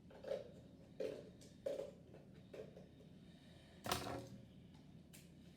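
Plastic toy parts and packaging handled and set down: a string of short clicks and knocks, the loudest about four seconds in.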